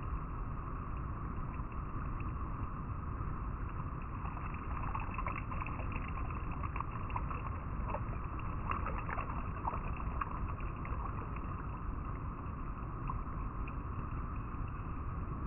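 River water flowing and rippling over rocks: a steady rush with small splashes and trickles standing out in the middle stretch.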